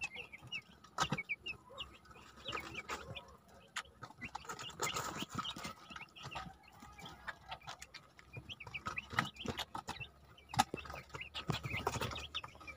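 A flock of three-day-old broiler chicks peeping: many short, high cheeps throughout, with scattered clicks and rustling in the litter. Among them is the wheezy, rattling breathing that the owner takes for the start of a cold in the chicks.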